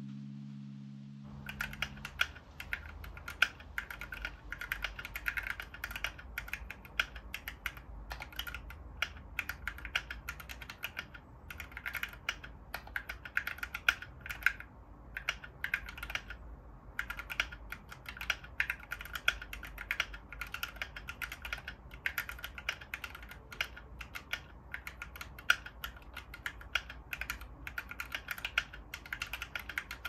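Typing on a UD61 61-key (60%) mechanical keyboard fitted with TTC Gold Pink linear switches: a fast, continuous stream of key clacks with a couple of brief pauses. The last of a music track fades out as the typing begins.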